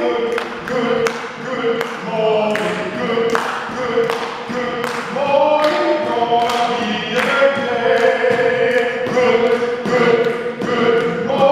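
A cappella singing with long held and sliding notes, over a steady beat of sharp percussive hits about two a second.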